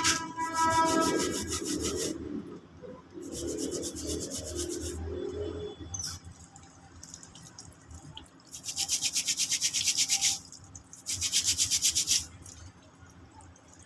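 Rapid back-and-forth rubbing strokes, like sanding or scrubbing a brake part by hand, in four runs of one to two seconds each with short pauses between.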